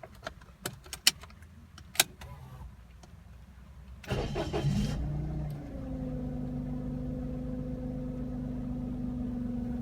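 A few sharp clicks, then about four seconds in a Toyota Passo's 1.0-litre three-cylinder engine is cranked by the starter, catches and settles to a steady idle. The idle carries a steady whine, the noise of a worn alternator bearing that has been growing louder.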